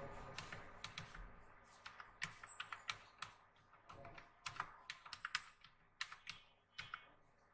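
Computer keyboard typing: quiet, uneven keystrokes coming in short runs of a few clicks a second.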